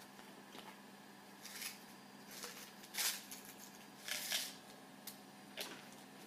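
Hands handling small jewellery-making materials while fetching a press hook for a necklace thread: light rustling and small clicks in several short bursts, the loudest about three and about four seconds in.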